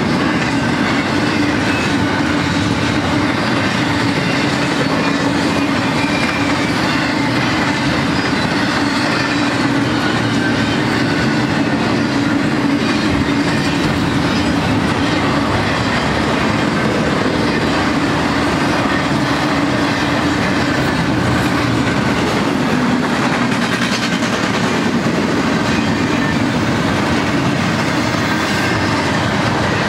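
Double-stack intermodal freight train rolling past, its well cars' wheels clattering steadily over the rails, with a faint high wheel squeal now and then.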